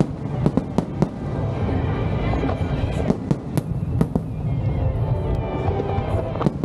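Aerial fireworks display: a continuous low rumble of launches and distant bursts, punctuated by sharp bangs and crackles, several in quick succession in the first second and more around three to four seconds in.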